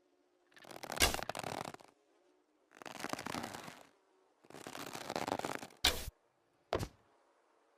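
Manchu bow and arrows being handled: three rasping scrapes, each about a second long, then two short sharp snaps near the end.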